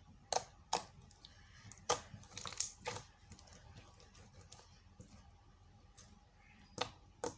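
Thick, overactivated slime being mixed with added glue, making scattered short sticky pops and clicks: several in the first three seconds, then two more near the end.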